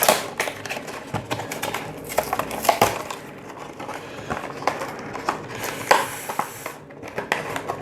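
Crinkling and rustling of trading cards and foil booster-pack wrappers being handled, a rapid run of small sharp crackles and clicks with a louder rustle about six seconds in.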